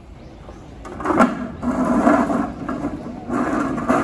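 Hollow red plastic ball scraping and rolling over the concrete floor as a polar bear cub shoves it with its nose and paw. The rumble starts about a second in, with a short break near the end.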